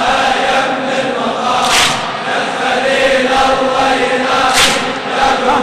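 A large crowd of male mourners chanting a latmiya lamentation refrain in unison. Twice, about three seconds apart, there is a loud collective slap of hands striking chests in time with the chant.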